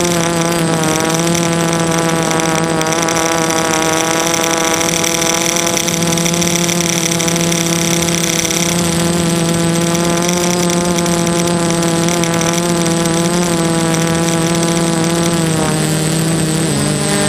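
Brushless motors and propellers of a DJI F330 quadcopter, heard from its onboard GoPro: a steady buzzing whine whose pitch wavers slightly with throttle, dipping and rising briefly near the end.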